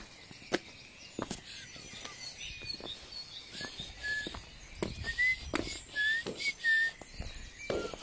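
Birds calling with short whistled chirps, coming thick and fast from about three and a half seconds in, over scattered clicks and crackles.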